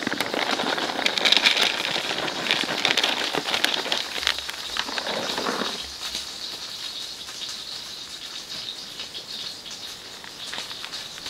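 Dry dog kibble poured from a bag into a plastic dish, rattling densely for about six seconds. After that there are quieter, scattered small clicks as a dog eats kibble from the dish.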